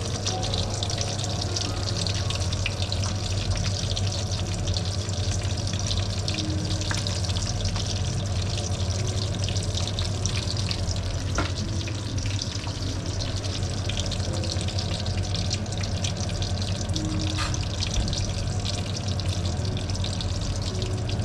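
Onions deep frying in hot oil: a steady, dense sizzle full of fine crackles, over a steady low hum.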